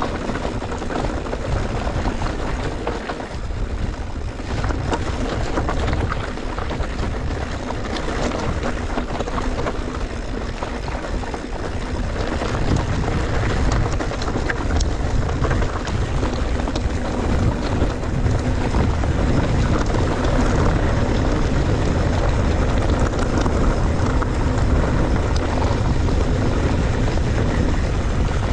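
Steady rumble of a mountain bike ride on a dirt track, heard from a camera on the rider: wind buffeting the microphone over the tyres and rattles of the bike, with a few faint clicks.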